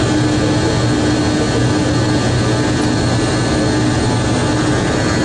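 Steady noise of a Boeing 777's jet engines and rushing air heard inside the cockpit, with a few steady hum tones running through it.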